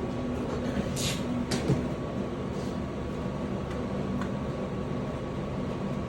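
A steady mechanical hum with a few light clicks and knocks, the clearest in the first two seconds.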